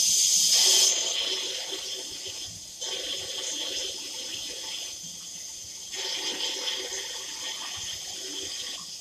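Water running into a saucepan of dried black-eyed peas to cover them: a steady splashing rush, loudest in the first second, then settling as the pan fills, cutting off at the end.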